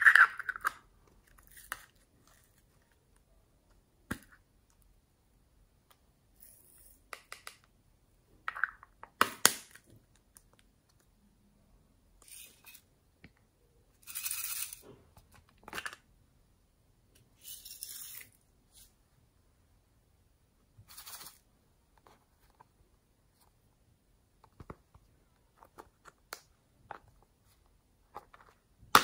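Small plastic novelty cases clicking and snapping open as they are handled, with several short rustling pours of glitter and sequins into a glass dish.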